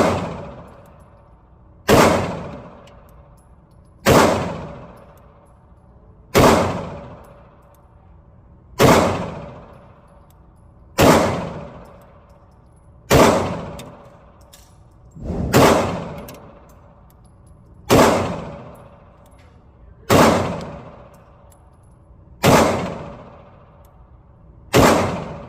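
9mm pistol fired in slow, evenly paced single shots, twelve in all, about one every two seconds, each with a short ringing tail.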